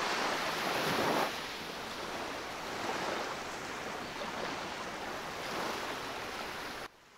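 Ocean surf washing on a beach: a steady wash of waves, louder for the first second or so, swelling gently now and then, and cutting off suddenly near the end.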